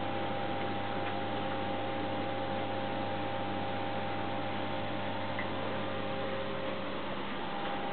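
Steady hum and hiss of aquarium equipment, such as pumps, filters and fluorescent tank lighting, running in a fish room. Several fixed tones sit over the hiss, and the lowest hum weakens near the end.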